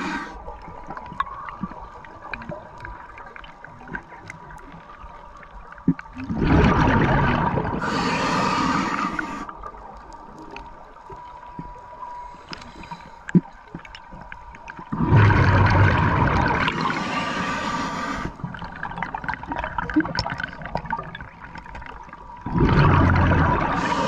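Scuba diver's exhaled bubbles gushing and gurgling from the regulator, heard underwater, in three long bursts roughly eight seconds apart with quieter stretches between breaths. A faint steady tone runs underneath.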